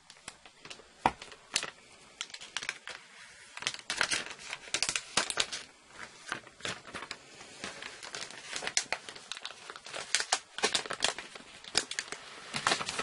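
Clear plastic shrink-wrap being torn and peeled off a boxed Apple Watch by hand, crinkling and crackling in irregular bursts as the film is pulled away.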